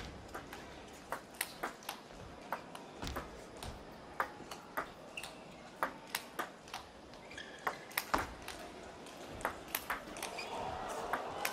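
Table tennis ball in a long rally, sharp clicks about three a second as it strikes the rackets and bounces on the table. Crowd noise in the hall rises near the end.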